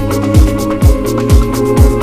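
Electronic dance music with a steady kick drum on every beat, about two beats a second, over sustained synth tones.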